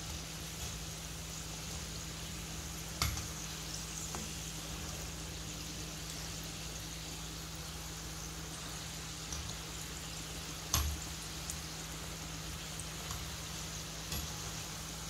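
Mini aloo samosas deep-frying in oil in a kadhai over a medium-to-low flame: a steady, even sizzle, with a few short knocks about three, eleven and fourteen seconds in.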